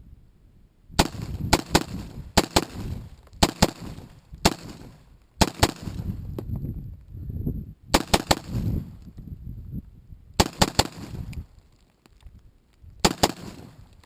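AR-15 with a 16-inch barrel and a Gamma 556 muzzle brake firing .223 rounds in semi-auto. Quick follow-up shots come mostly in pairs and short strings, with pauses of one to two seconds between groups.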